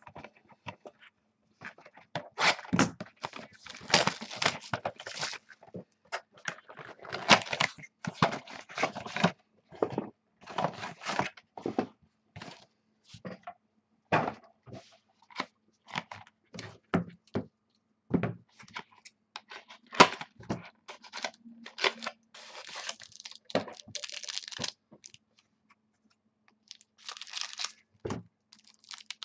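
Trading-card boxes and packs being handled and opened by hand: tearing of shrink wrap and foil wrappers, crinkling, and cardboard scraping and thudding, in irregular bursts.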